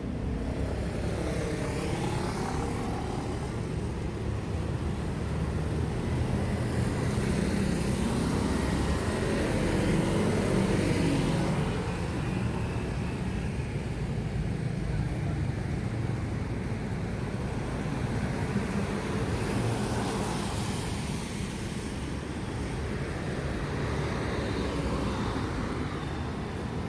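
Road traffic: car engines and tyres going by in a steady rumble, loudest about ten seconds in as a vehicle passes close, with another swell near twenty seconds.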